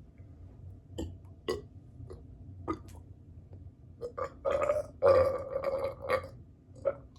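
Repeated belching from a stomach bloated with soda. A few small burps come first, then a run of louder burps from about four seconds in, the longest and loudest lasting about a second, and a short one near the end.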